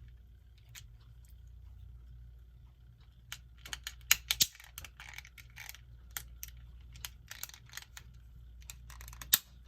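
Small plastic clicks and light rattling as the cover of a quartz clock movement is handled and pressed back on. The clicks come as a scattered series from about three seconds in, with the loudest snaps about four seconds in and one more near the end.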